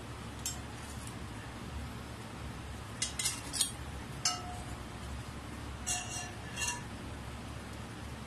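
Metal tongs and spatula clinking against the glass bowl and wire rack of an Imarflex turbo broiler as a half-roasted whole chicken is turned over for its second side. A few sharp clinks in small clusters, about three, four and six seconds in, some ringing briefly like struck glass.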